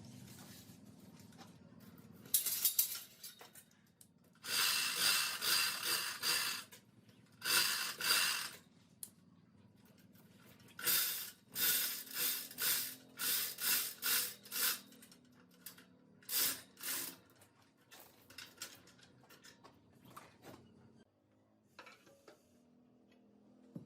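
Runs of short, sharp scraping strokes, several a second, with pauses between the runs.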